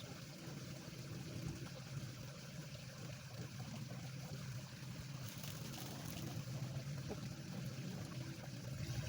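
Small stream flowing and trickling, a steady low wash of water.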